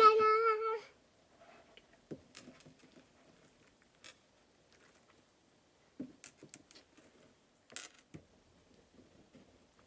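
A toddler's short high-pitched vocal sound, held for under a second at the start. After it come faint, scattered clicks and small sticky crackles of super sticky slime being handled and pulled.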